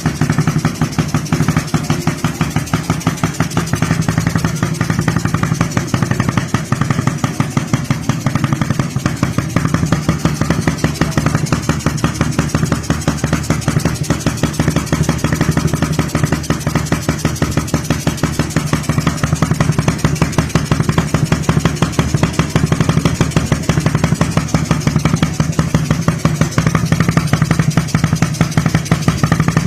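Suzuki Raider R150 single-cylinder four-stroke motorcycle engine idling steadily through its exhaust, an even rapid pulsing with no revving.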